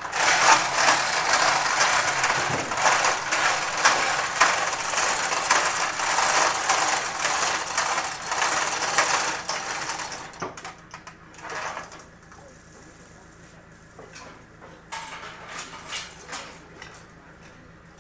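Loud, dense mechanical rattling and clattering for about ten seconds, then it stops, leaving a low steady hum with a few short clatters.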